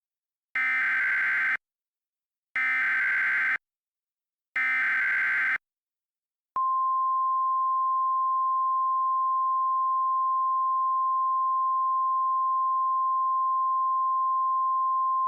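Emergency Alert System SAME header: three one-second bursts of raspy digital data tones, about a second apart. About six and a half seconds in, a single steady attention tone near 1 kHz begins and holds.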